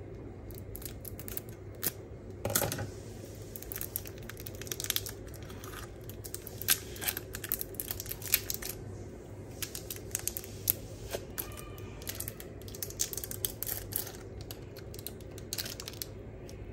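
Thin plastic film being cut and peeled off surimi crab sticks by hand: irregular crinkling, small tearing sounds and clicks, over a steady low hum.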